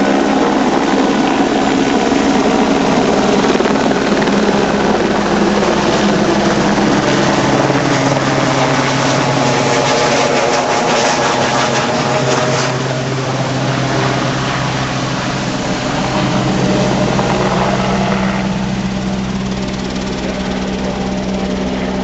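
Helicopter flying over with its rotor and engine noise, the pitch sliding down near the middle and the sound easing off in the second half, over a steady engine hum.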